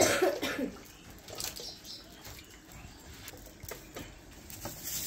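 A short warbling bird call right at the start, then a few scattered clinks of a metal ladle and spoon against aluminium cooking pots as fish curry is ladled from one pot into another.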